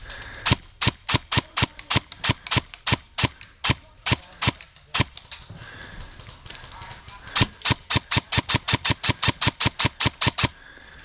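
Airsoft gun firing rapid shots: a run of about four to five shots a second for several seconds, a short pause, then a faster run of about nine shots a second.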